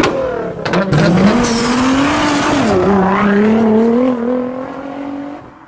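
Sports car engine revving, its pitch climbing, dipping briefly about three seconds in, then rising slowly again before fading out near the end. A few sharp cracks come just before the rise.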